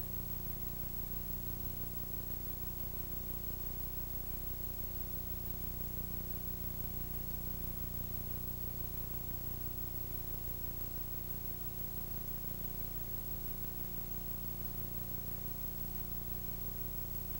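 Steady hiss with a constant low hum of several held tones and no other sound: the background noise of a multi-generation VHS recording.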